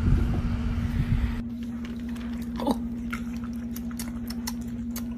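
An animal chewing, a run of small crunchy clicks over a steady low hum.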